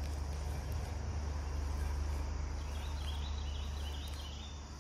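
Steady outdoor ambience: a low rumble with a faint, high, steady insect drone over it, and a brief scratchy high chatter about three seconds in.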